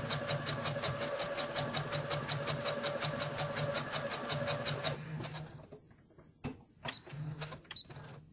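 Brother electric sewing machine stitching a seam through cotton fabric: a rapid, even needle clatter over a steady motor hum. It stops abruptly about five seconds in, followed by a few light clicks and knocks.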